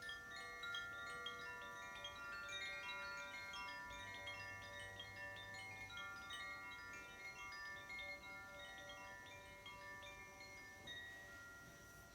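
Makino-style chimes played solo: many bell-like notes struck one after another, several a second, each ringing on and overlapping the others, thinning out toward the end.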